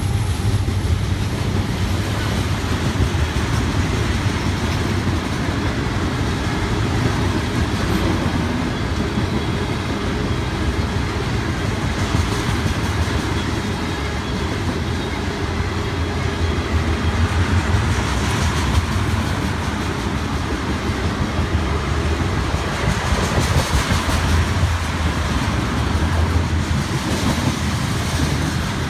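Freight train passing close by: a Union Pacific diesel locomotive goes past at the start, then loaded tank cars roll by with a steady rumble and the clicking of wheels over the rail joints.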